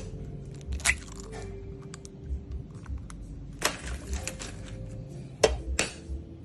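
Egg being cracked: several sharp taps and cracks of shell, spaced out, the loudest about five and a half seconds in.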